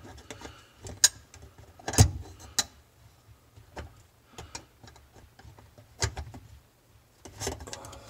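Scattered sharp metal clicks and knocks from a garbage disposal's sink-flange mounting ring and snap ring being worked into place by hand, the loudest about two seconds in.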